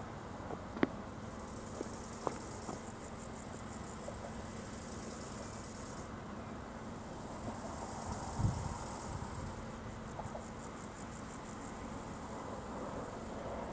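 Insects, crickets or grasshoppers, chirring in high-pitched bouts with short pauses, the chirr pulsing rapidly near the end. A few sharp clicks come in the first few seconds, and a short low thump about eight seconds in.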